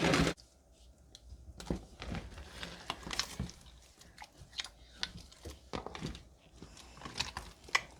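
A big mass of mixed slimes studded with foam beads being squished and kneaded by hand, giving irregular wet crackles and pops.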